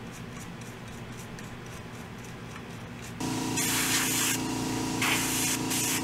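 Quiet room hum, then a small electric motor starts humming about three seconds in, followed by three loud hissing blasts of air as the freshly soldered PS5 motherboard is being cleaned off.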